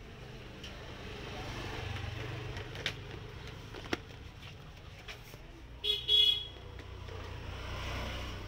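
Road traffic passing, with a short double honk of a vehicle horn about six seconds in and two faint clicks before it.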